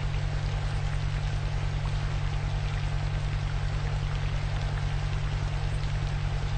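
Layered background track of a subliminal audio: an even hiss like rain or running water over a steady low drone and a deep tone pulsing several times a second, unchanging throughout.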